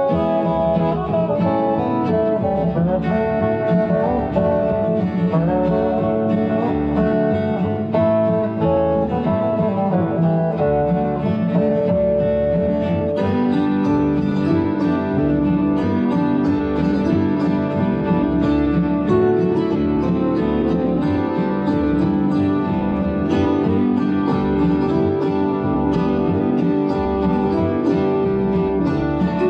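Instrumental music led by plucked acoustic guitar, with a change to lower, held notes about 13 seconds in.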